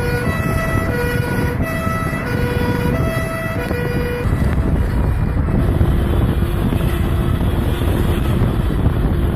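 Two-tone siren alternating high and low about every half second, stopping about four seconds in; wind buffeting and road noise from the moving car go on throughout.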